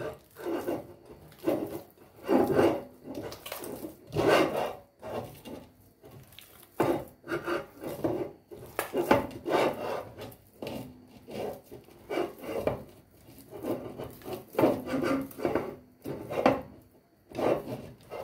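Hands kneading moist arepa dough of precooked white corn flour in a ceramic bowl: irregular squishing and rubbing strokes, about one a second.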